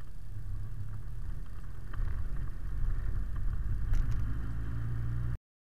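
Delivery truck's engine and road rumble heard from inside the cab while driving, a steady low drone with a few sharp knocks about two and four seconds in. It cuts off suddenly near the end.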